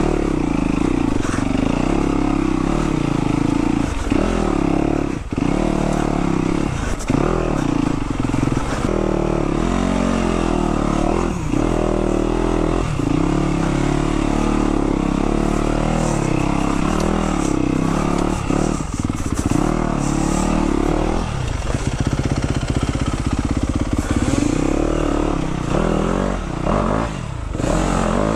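2021 Yamaha YZ250F's 250cc single-cylinder four-stroke engine being ridden through technical hard-enduro terrain. The revs rise and fall constantly, with many short drops off the throttle.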